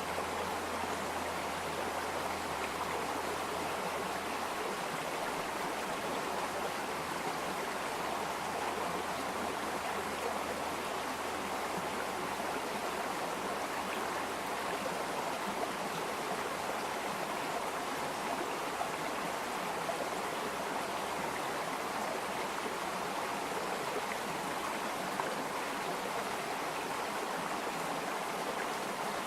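Water running steadily in a stream, an even, unbroken flow.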